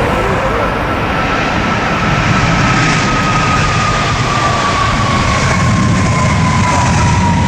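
Boeing 767-400ER's twin jet engines at takeoff power: a loud, steady rumble with a whining tone that slowly falls in pitch as the airliner passes.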